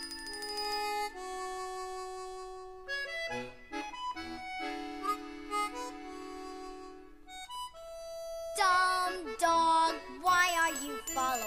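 Background music with held melodic notes, turning in the last few seconds to a wavering, bending melodic line.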